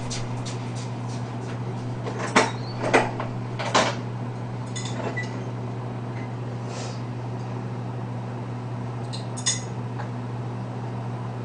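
Dishes and cutlery clinking now and then: three knocks about two to four seconds in, a few fainter ones, and one more about nine and a half seconds in, over a steady low hum.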